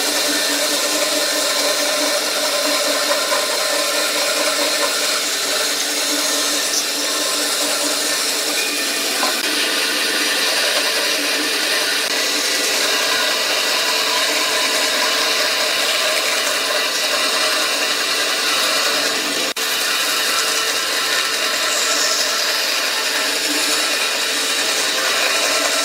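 Woodworking power tool running steadily on wood, with a brief drop about twenty seconds in.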